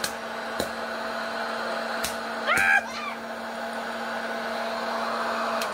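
Small hot-air popcorn maker's fan motor running steadily, with a few sharp pops of kernels going off against its metal mesh lid. At the very end the machine is switched off and the motor's pitch starts to fall as it winds down.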